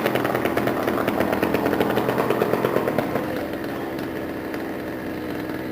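Two-stroke chainsaw running at high revs, then dropping back to a lower, steadier run about three seconds in.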